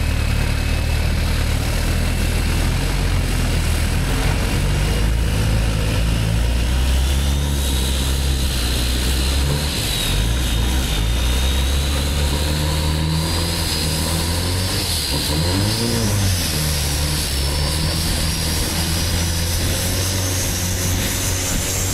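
Turbocharged Isuzu 4JJ four-cylinder diesel of a longtail racing boat running hard on a full-power pull, with a high whine that climbs steadily in pitch, over the rush of water.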